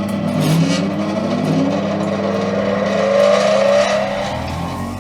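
Axminster Craft AC200WSG 8-inch bench grinder starting up, its heavy aluminium oxide wheels spinning up slowly with a whine that rises steadily in pitch for about four seconds, then levels off near full speed, over a steady low hum.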